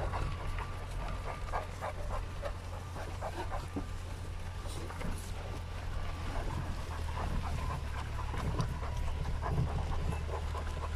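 Large dog panting hard as it jogs close beside a car, over the steady low hum of the car driving slowly.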